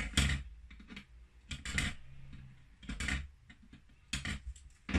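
Sharp clicks and ticks of small hand tools and parts on a circuit board during transistor soldering, about one a second.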